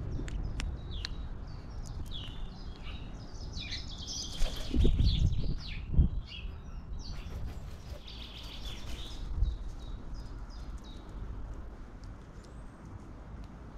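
Small birds chirping in short, high calls, with a couple of low thumps and bursts of rustling around the middle.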